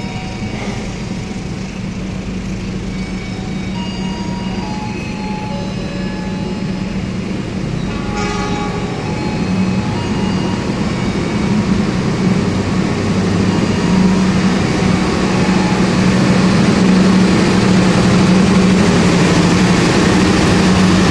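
Ambarawa Ekspres passenger train rolling slowly through the station, its rumble and a steady low hum growing louder as the cars move past.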